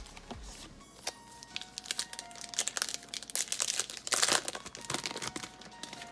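Trading-card pack wrapper being torn open and crinkled, a dense crackling that builds through the middle and is loudest a little past the midpoint.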